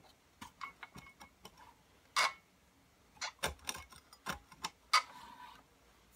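Scattered clicks and metal knocks from handling a Powerfist bench-mounted chainsaw chain grinder with its motor off: the grinder head and chain clamp being moved and set in a dry run to bring the stone to the tooth. The loudest knocks come about two seconds in and about five seconds in, the second with a short ring.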